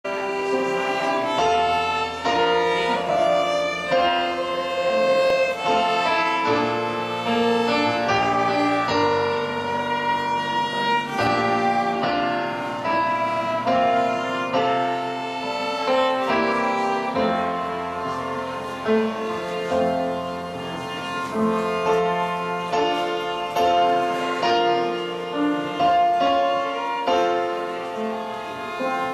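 Two violins playing a slow melody in long held notes, with piano accompaniment underneath.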